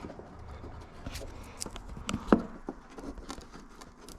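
Light clicks and knocks of a plastic parking sensor and its wiring harness being worked into place in a truck's rear bumper, with one sharp click a little over two seconds in.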